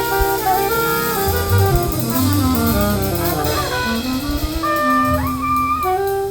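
Small jazz group playing live: an alto saxophone plays the melody in quick runs over drum kit and a low bass line, ending the phrase on a long held high note.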